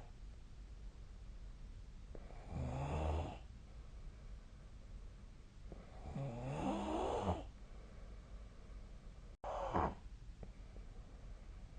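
A sleeping person snoring: three snores a few seconds apart, the last one shorter.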